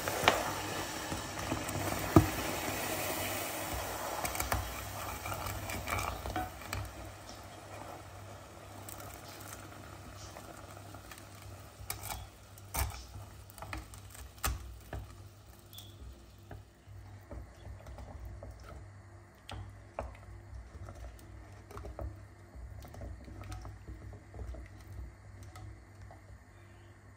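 Hot sugar syrup sizzling and hissing in a pot after water has been poured in, dying down over the first half, while a wooden spoon stirs and knocks now and then against the pot.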